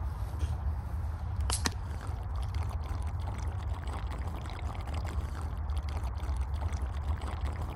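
Beer can being shotgunned: two sharp clicks about a second and a half in as the can is cracked open, then the beer pouring and gulping as it is chugged straight down.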